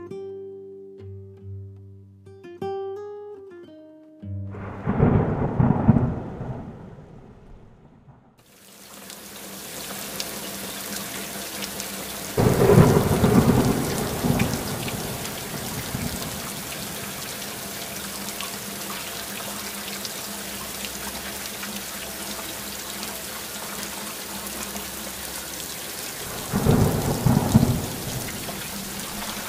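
Steady rain begins about eight seconds in, after plucked guitar music fades in the first few seconds. Rumbles of thunder come three times: once before the rain starts, once a few seconds after, and once near the end.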